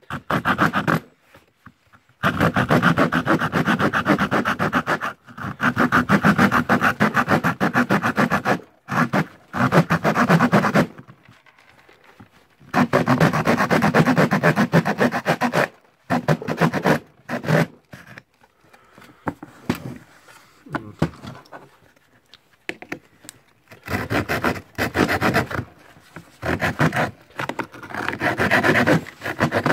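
Small hand saw cutting through thin plywood: quick back-and-forth strokes in runs of a few seconds, broken by short pauses, with a quieter, sparser stretch a little past the middle.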